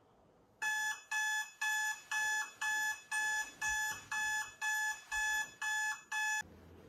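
Electronic alarm clock beeping: a run of identical high beeps, about two a second, that starts about half a second in and cuts off near the end as it is switched off.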